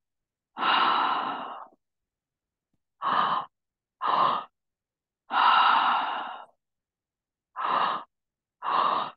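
A woman demonstrating the three-part breathwork breath through the mouth: two short breaths in (belly, then chest) followed by one longer audible breath out. The cycle repeats about twice at an even pace.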